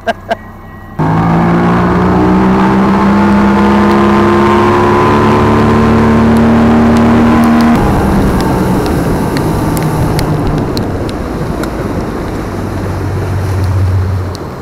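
Boat's outboard motor pulling away and accelerating, its pitch rising steadily for several seconds, then changing abruptly to a steadier, lower running note that eases off near the end.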